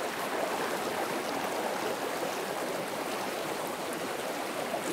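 Fast, shallow river current rushing steadily over rocks.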